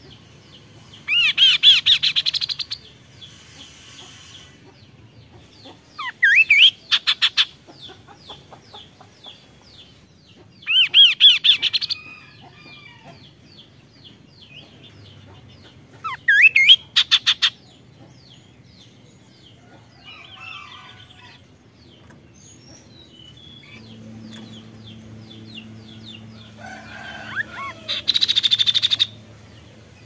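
Chestnut-capped babbler (kaso-kaso) singing in five short bursts a few seconds apart. Each burst is a rising whistled note that runs into a rapid rattling trill.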